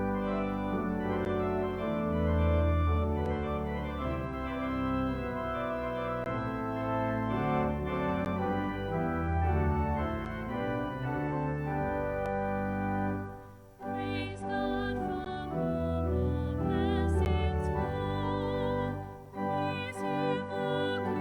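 Organ playing offertory music in slow, sustained chords over a moving bass line, with a wavering vibrato melody entering about two-thirds of the way through.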